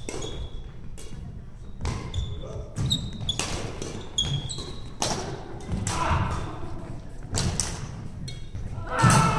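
Badminton rally: sharp racket strikes on the shuttlecock every second or so, shoes squeaking on the wooden court floor and feet thudding. Voices rise near the end, the loudest moment.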